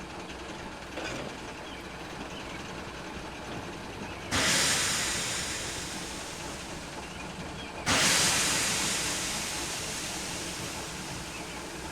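Steam engine sound effect: a steady low rumble, broken twice by loud hisses of escaping steam about three and a half seconds apart. Each hiss starts suddenly and fades away slowly.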